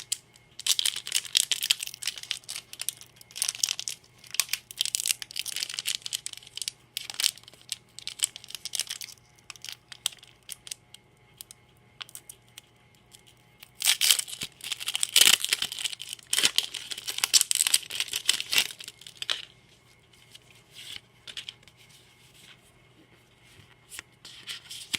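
Foil-lined plastic booster pack wrapper being crinkled and torn open by hand. It comes in two long spells of crackling rustle several seconds apart, then scattered light crinkles near the end.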